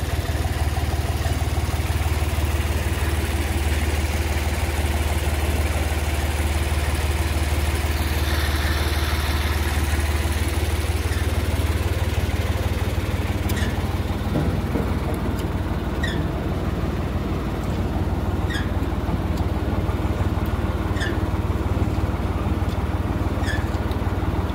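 Tractor engine running steadily, driving a belt-driven threshing machine whose drum and pulleys are turning. From about halfway, a short squeak repeats roughly every two and a half seconds.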